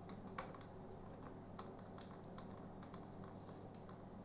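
Faint, irregular small clicks and ticks of a small Phillips screwdriver loosening screws in a plastic laptop base.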